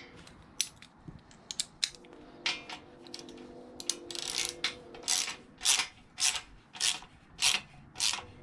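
Ratchet wrench clicking as a nut or bolt is tightened onto the metal scoop: scattered clicks and taps at first, then a steady run of ratcheting strokes a little under two a second from about halfway in.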